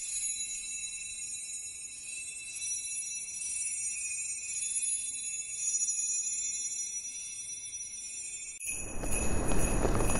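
Jingle bells jingling steadily, thin and high with no low end. Near the end a louder, fuller noise with a low rumble cuts in suddenly.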